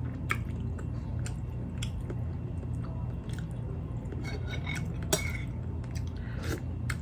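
Close-up chewing and wet mouth sounds of someone eating, with a few sharp clicks, over a steady low hum.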